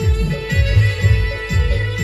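Live band music: a Roland XPS-30 keyboard playing held melody notes over a heavy, steady low drum beat, played loud through large speakers.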